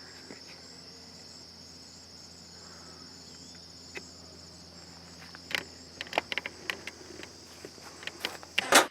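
Steady high-pitched chorus of insects in the background, with a run of sharp clicks and knocks in the second half.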